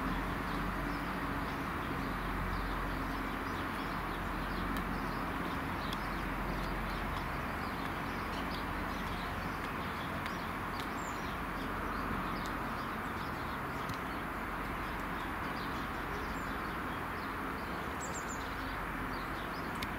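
Class 170 Turbostar diesel multiple unit approaching slowly, its underfloor diesel engines giving a steady low drone, with small birds chirping throughout.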